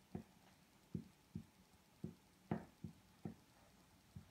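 Marker writing on a whiteboard: about nine faint, irregularly spaced taps and short strokes as letters are written.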